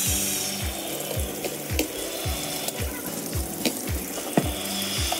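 Background music with a steady kick-drum beat, over tap water running and splashing onto a stainless-steel pressure cooker lid in a sink.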